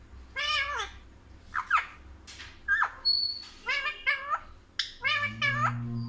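Rose-ringed parakeet calling: a run of about eight loud cries, some drawn-out with a wavering pitch and some short and sharply falling.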